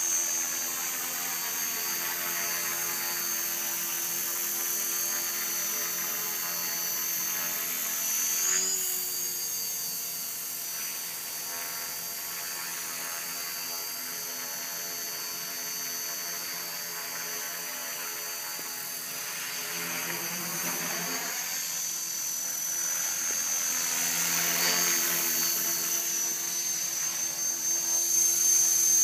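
Align T-Rex 450 Pro electric RC helicopter in flight: a steady high-pitched motor and gear whine with the swish of the rotor blades, wavering in pitch briefly about a third of the way in and getting louder near the end.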